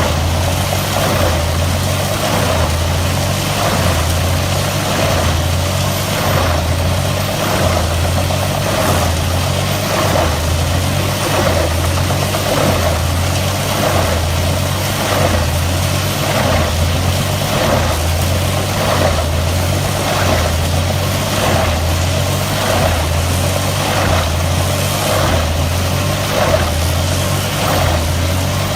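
Mobile wood chipper's diesel engine running steadily under load, with an even pulsing about once a second.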